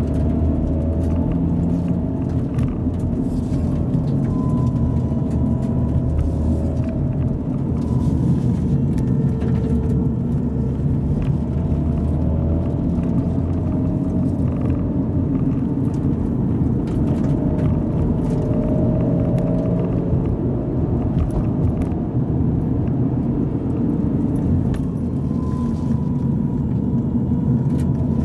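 Subaru Impreza GVB Spec C running hard, a steady engine and road rumble. Over it, a whining groan from the power steering pump rises and fades several times as the steering is turned. The noise goes away with fresh fluid, which marks it as a sign of old, degraded power steering fluid.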